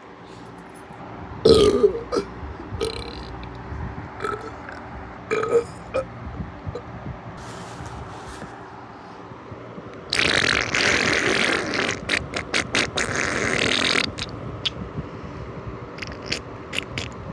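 A person burping several times: a loud short burp about a second and a half in and smaller ones over the next few seconds. About ten seconds in comes a noisy stretch of about four seconds, the loudest part, which then cuts off.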